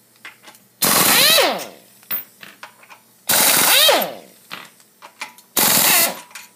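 Pneumatic impact wrench with a 12 mm socket firing in three loud bursts about two and a half seconds apart, each ending in a falling whine as the air motor spins down, as it backs out the bolts of a Honda GX120 gearbox cover. Small clicks of handling between the bursts.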